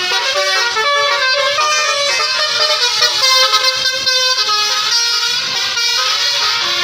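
Tour buses' telolet basuri musical air horns playing a tune, the notes changing pitch in quick steps, with more than one horn sounding at once.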